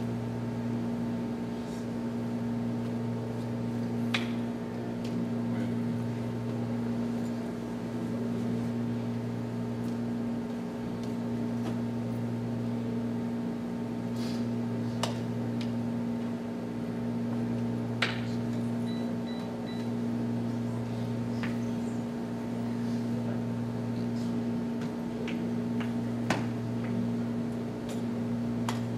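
Steady low mechanical room hum, with a few short sharp taps and clicks seconds apart as the drill team silently handles their canes.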